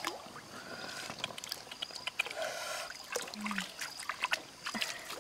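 Eggs being washed by hand in a wicker basket sunk in water: water sloshing and trickling, with many light clicks of eggshells knocking together.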